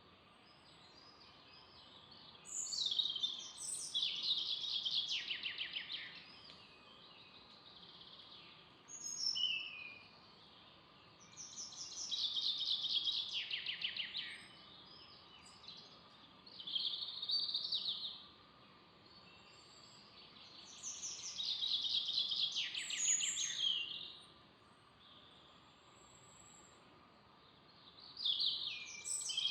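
A songbird singing: a string of separate high phrases a few seconds apart, several of them sliding down into a falling trill, over a faint steady background hiss.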